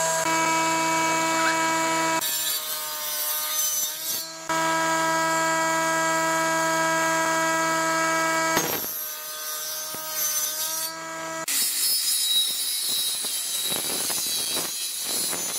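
Electric table saw motor running with a steady whine, its pitch sagging as it rips hardwood boards, twice. In the last few seconds a handheld electric circular saw cuts through a thick board with a harsh, noisy sawing sound.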